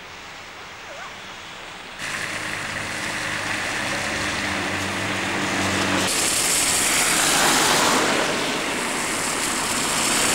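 A lorry's engine running as it drives past, then from about six seconds the hiss of car tyres on a wet, slushy road, swelling as the car goes by.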